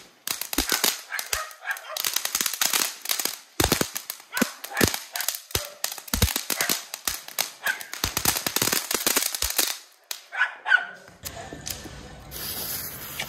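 Fountain firework spraying sparks with dense, irregular crackling pops, which die out about ten seconds in. A quieter, steady background sound follows.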